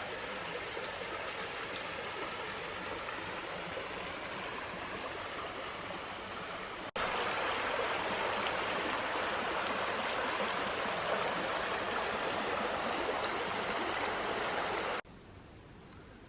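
A creek flowing steadily. It comes in two clips: the second, from about seven seconds in, is louder, and the sound drops off abruptly near the end.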